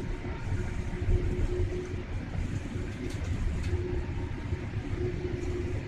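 Cabin noise inside a Boeing 787 Dreamliner taxiing: a steady low rumble from the engines and the wheels rolling on the taxiway, with a faint steady hum.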